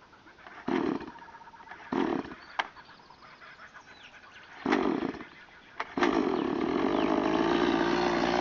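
Stihl MiniBoss two-stroke chainsaw being pull-started: three pulls of the starter cord that don't catch, then about six seconds in the engine fires and keeps running steadily.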